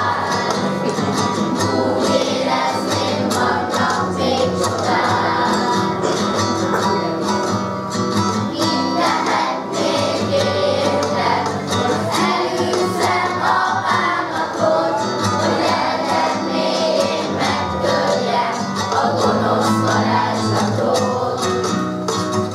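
Children's choir singing in unison and parts, with a guitar accompanying them.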